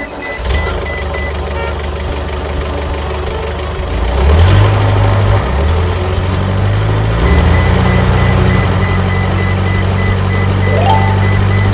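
Cartoon truck engine sound effect, running with a steady low hum and stepping up in pitch three times as it revs and pulls away. A short rising chirp comes near the end.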